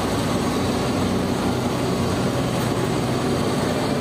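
Single-drum road roller's diesel engine running steadily.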